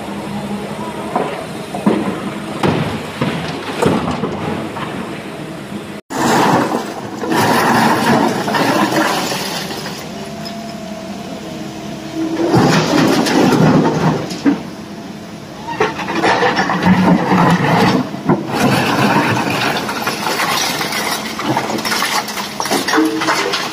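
Sany hydraulic excavator's diesel engine running under load while its bucket tips broken rock into a steel dump-truck bed, the rocks clattering and rumbling down in several long pours. The sound cuts out for an instant about six seconds in.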